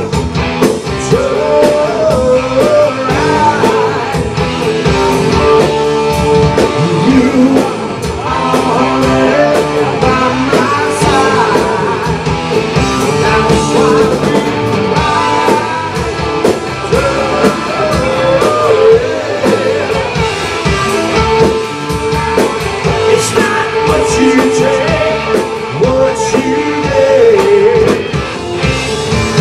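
Live rock band playing loud: distorted electric guitars, bass and a drum kit, with a lead vocal sung over them.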